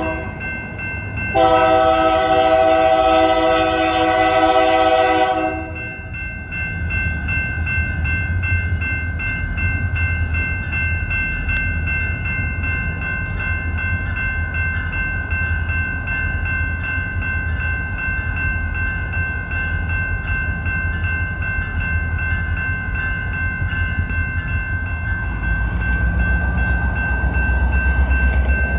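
BNSF diesel locomotive's air horn: the tail of one note right at the start, then one long blast of about four seconds beginning about a second in. After that the locomotive's diesel engine rumbles as it creeps toward the crossing, getting louder near the end, under the steady ringing of the grade-crossing bells.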